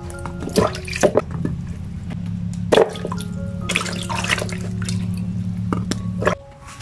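Hands splashing and sloshing in a basin of water while washing tomatoes, in several separate splashes. Soft background music plays throughout, over a steady low hum that stops about six seconds in.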